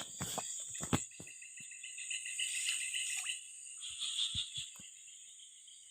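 Insects and frogs calling: a steady high insect drone, with a run of rapid pulsed chirps about two seconds in. A few sharp clicks and knocks in the first second and again near the end.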